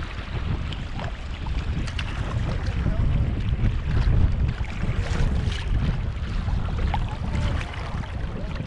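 Wind buffeting the kayak's bow-mounted camera microphone as a gusty low rumble, over river water rippling and splashing against the kayak's hull.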